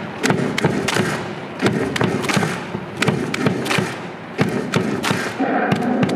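Stadium crowd clapping, many sharp claps and bangs over a steady din.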